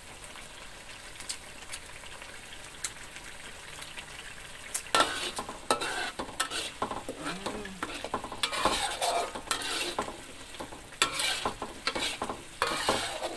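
A metal spatula scraping and stirring a thick Balinese spice paste frying in an aluminium wok, with sizzling. The first few seconds are quieter, with a few sharp clicks of metal on metal; from about five seconds in come repeated, louder scraping strokes.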